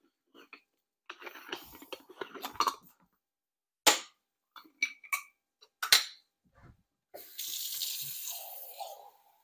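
Kitchen clatter: dishes and utensils clinking, with several sharp clicks, then water running for about two seconds near the end.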